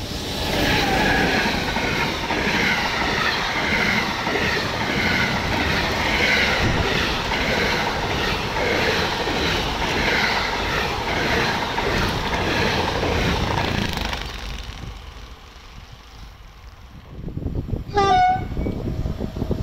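A freight train of low-floor wagons carrying lorry trailers rolls past close by, its wheels clacking over the rail joints in a steady repeating rhythm; the noise fades away about fifteen seconds in. Near the end a locomotive horn sounds briefly.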